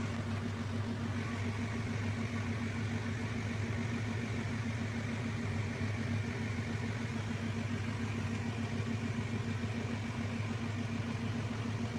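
Diesel engine of a pick-and-carry mobile crane running steadily at a constant speed.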